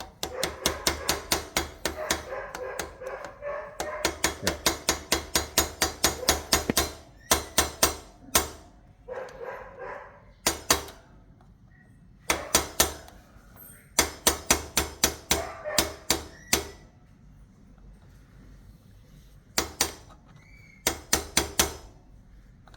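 Hammer tapping on metal in quick runs of about four or five blows a second, with a ringing after the strokes, stopping and starting in several bursts; the hammering is part of a fix for a squeaking motorcycle rear brake.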